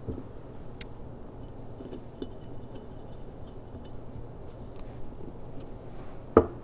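Flat-blade screwdriver turning the pilot jet into a small-engine carburettor body, with light metallic ticks and scrapes. Near the end comes a single sharp knock, the loudest sound.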